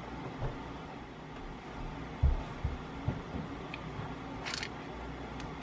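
Handling noise from the plastic barrel parts of a Canon 75-300mm USM zoom lens being taken apart by hand: a few soft bumps about two to three seconds in, small clicks, and one short sharp scrape about four and a half seconds in.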